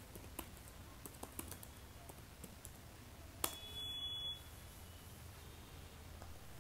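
Faint keystrokes on a computer keyboard, a handful of separate clicks. About three and a half seconds in comes a sharper keypress, the Enter key, followed by a brief high tone lasting under a second.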